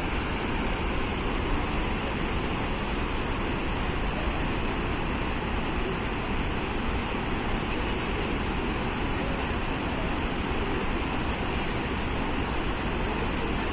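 Steady rushing roar of a waterfall, an even wash of water noise without breaks.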